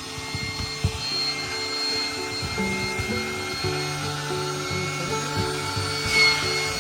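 Background music with a melody of low notes that change every half second or so.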